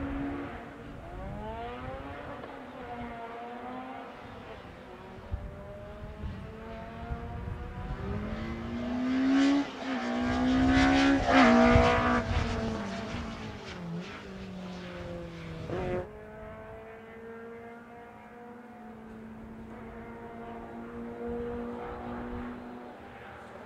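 Rally car engines on a closed special stage, revving up and down as they shift through the gears. One car is heard loudest about ten to twelve seconds in as it comes close. The sound changes suddenly at about sixteen seconds to a quieter, duller engine, still revving up and down.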